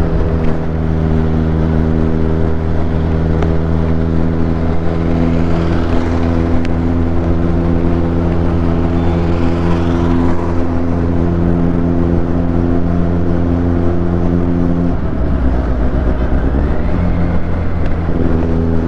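Kawasaki Z800's inline-four engine running at a steady speed while riding. Near the end its steady note breaks up for about three seconds, then settles back.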